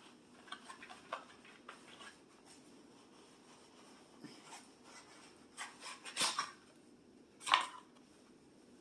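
Faint handling noises from a toy pet carrier being searched: scattered rustles and small clicks, with two louder brief scrapes about six and seven and a half seconds in.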